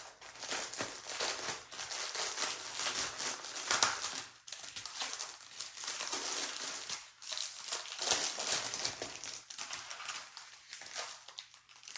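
Plastic packaging crinkling as a sealed package of diamond-painting drills is opened and the small plastic drill bags inside are handled, with a few brief pauses.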